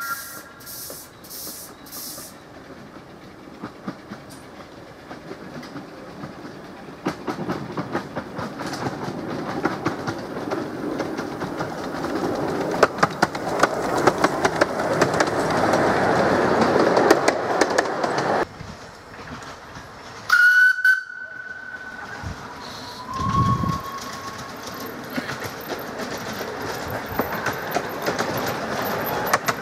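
Coal-fired miniature steam locomotive hauling passenger cars, approaching and passing close by, growing louder: steam exhaust and wheels clicking over the rail joints. Then a short loud whistle blast, and the train running on again.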